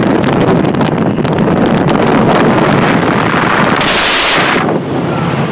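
Wind buffeting the microphone of a rider on a moving Kawasaki Vulcan motorcycle, with the motorcycle's engine running as a low steady hum underneath. A louder gust hits about four seconds in.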